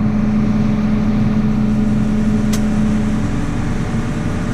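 Tractor engine running steadily at working speed with an even hum. There is a brief click about two and a half seconds in.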